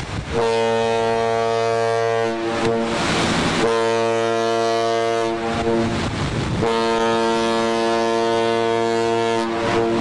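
The MS Regent Star's ship horn sounds three long, steady blasts, each two to three seconds long, with short gaps between them.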